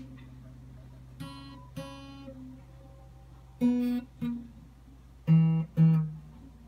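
Open strings of a Martin DCPA5 acoustic guitar plucked one at a time: six single notes in three pairs, each ringing and fading, the last pair lower and louder. The strings are being plucked to test a newly fitted ZeroGlide nut for string buzz and height.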